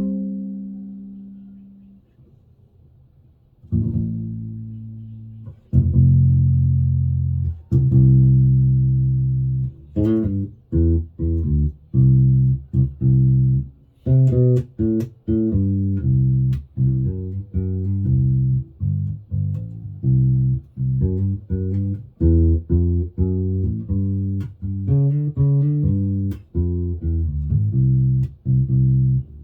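Hammer 5-string mini electric bass played through a Warwick BC10 bass combo amp. A few long ringing low notes, then from about ten seconds in a steady run of short, detached plucked notes.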